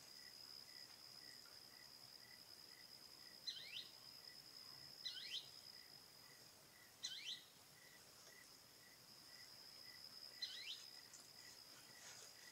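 Faint evening insect chorus: a steady high buzz with a fainter pulsing chirp about three times a second beneath it. Over it come four short bird calls, each a quick downward sweep, spaced a couple of seconds apart.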